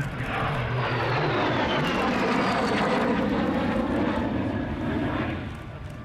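Lockheed T-33 jet trainer's turbojet passing overhead: a loud rushing jet noise with a high whine that falls in pitch as the jet goes by, fading out near the end.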